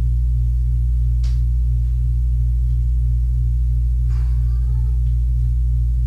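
A steady low hum throughout, with a brief sharp tick about a second in and a short kitten meow about four seconds in.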